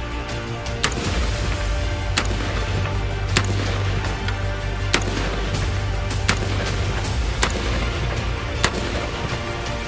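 Colt M4 carbine firing seven single 5.56 mm shots, one every second and a quarter or so, over background music.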